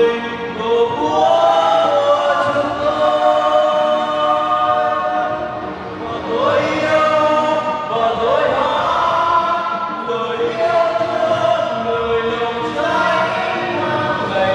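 Three men singing together in harmony through handheld microphones, holding long notes. Twice in the middle they swoop up into a new note.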